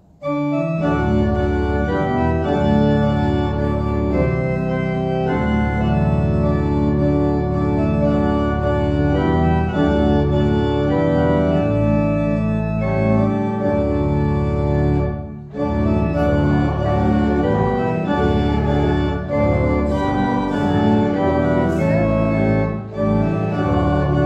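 Organ playing a hymn tune in full, held chords. It comes in just after the start, with a short break in the sound about fifteen seconds in.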